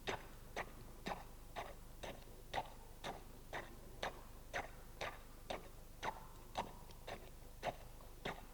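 Fresh concrete being compacted in a test mold: short, regular strokes about two a second, each with a brief ringing tail.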